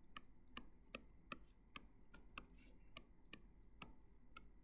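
Faint, irregular clicks of a stylus tip tapping a tablet screen during handwriting, about two a second.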